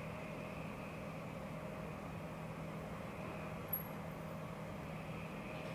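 Steady background hum with faint steady tones in it, unchanging throughout, and a single short click about two-thirds of the way through.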